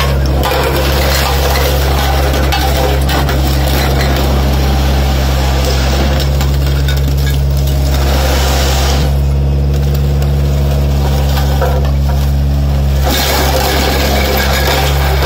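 Diesel engine of an L&T Case road roller running steadily while its steel drum crushes rows of glass liquor bottles, with dense crackling and crunching of breaking glass. The crunching stops for a few seconds after the middle, leaving only the engine hum, then starts again near the end.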